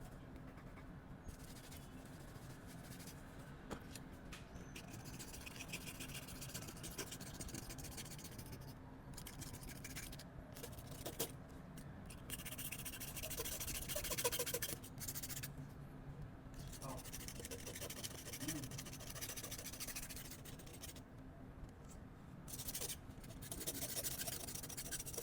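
Scraping and rubbing of a repair tool against an iPhone 12 Pro Max's housing in irregular strokes with short pauses, over a faint steady hum.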